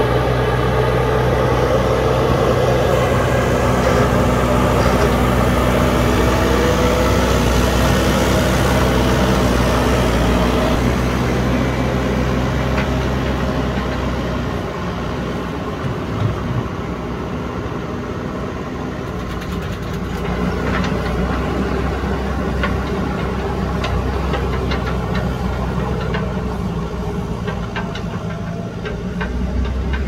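JCB backhoe loader's diesel engine working under load as the front bucket pushes soil, a steady low engine note. About halfway through it drops and wavers as the machine moves off, then rises again.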